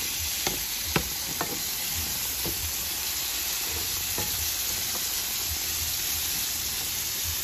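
Stir-fry vegetables tossed with a wooden spatula in a nonstick pan: steady sizzling of frying, with a few sharp knocks of the spatula against the pan, most in the first couple of seconds.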